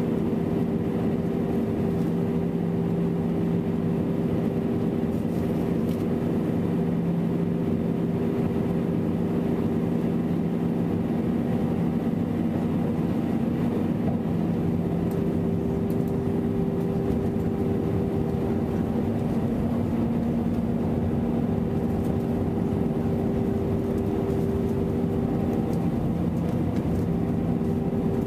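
Cabin noise inside a Boeing 737 airliner on approach: a steady drone of engines and rushing air, with a low hum of a few even tones that holds unchanged.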